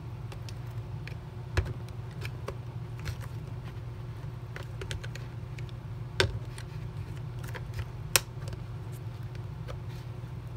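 Small plastic clicks and scrapes as a flathead screwdriver is worked around the screen filter of a Dyson V7/V8 cyclone assembly to pop its clips, with three sharper snaps about one and a half, six and eight seconds in, over a steady low hum.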